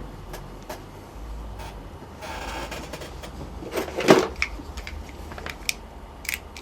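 Small clicks and knocks of hands handling a lighter and the power-jack parts while heat-shrink tubing is heated, with a short hiss about two seconds in and a louder knock about four seconds in, over a low steady hum.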